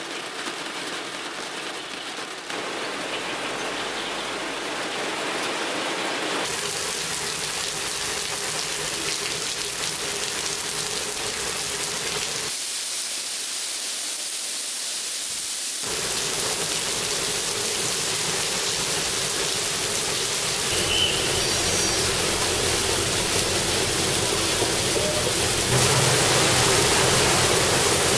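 Rain falling, a dense steady hiss whose character changes abruptly several times, as the sound cuts from one rain recording to another.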